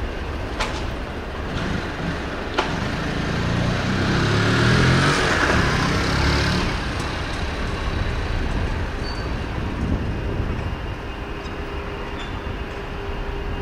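City street noise, with a motor vehicle passing close by: its rumble and tyre hiss swell up about four seconds in and fade again by about seven seconds. A few sharp clicks sound near the start.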